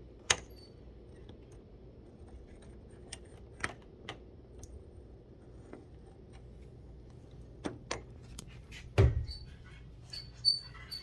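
Scattered light clicks and knocks of a bedroom door being handled and opened, with a louder thump about nine seconds in.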